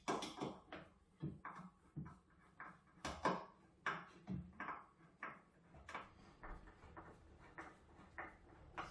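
Repeated rasping strokes of a hand tool working wood, about two a second and uneven in strength.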